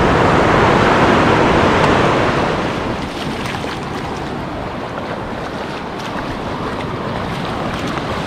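Shallow surf washing up the sand, with wind on the microphone; louder for the first two seconds or so, then settling a little.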